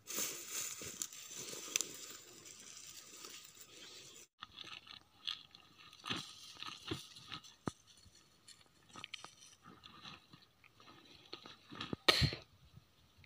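Dry cut stalks and leaf litter crunching and crackling, as if trodden on and shifted, in scattered sharp crunches, with a short break about four seconds in and a louder rustle near the end.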